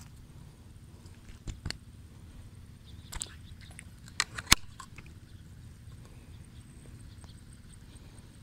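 A few short, sharp clicks and knocks over a low steady rumble. There is a pair about a second and a half in, a small cluster near three seconds, and two more just past four seconds, the last of which is much the loudest.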